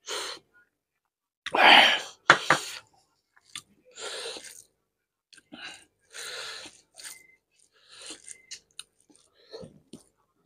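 Eating sounds: chewing and mouth noises mixed with fingers working rice and fish curry on a plate, in short irregular bursts, the loudest about two seconds in.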